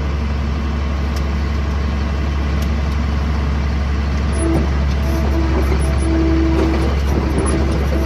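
New Holland skid steer engine running steadily. From about four seconds in, a steady higher whine joins it as the bucket tilts, which is the hydraulics working under load.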